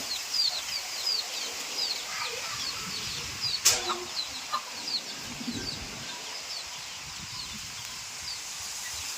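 Chickens peeping in quick, short, high chirps, several a second, with one sharp click about three and a half seconds in.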